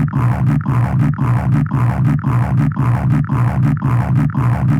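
A deep text-to-speech voice's word "grounded" stuttered in a rapid loop, about four or five repeats a second.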